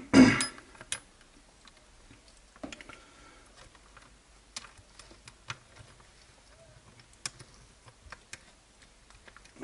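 Light, irregular clicks and taps of plastic and metal RC buggy parts (the rear end of a Kyosho Inferno MP7.5) being handled and fitted together by hand, with a louder knock right at the start.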